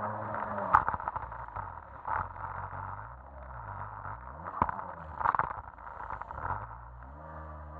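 Jet ski engine running, its revs falling back about a second in and rising again near the end, with several sharp knocks and short rushing noises over it.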